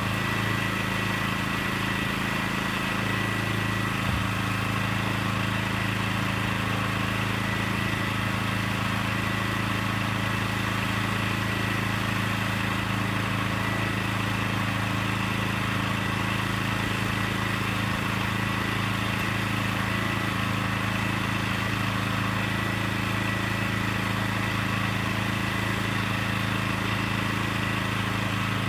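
Small gasoline engine on the portable truck scale's frame, driving its hydraulic power unit, running steadily at a constant speed.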